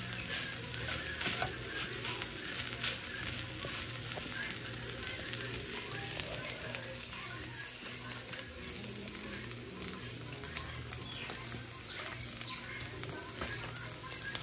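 Ground beef frying in a pan: a steady sizzle with fine crackling, stirred with a wooden spoon at the start.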